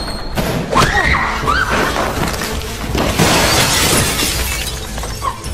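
Window glass shattering as a body crashes through it, a long crash of breaking glass loudest about three to four and a half seconds in, over film music.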